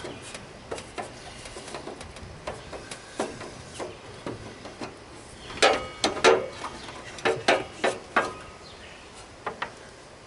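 Scattered clicks and clinks of metal parts and tools being handled while a mower hood assembly is taken apart, with a cluster of louder ringing clinks about six to eight seconds in.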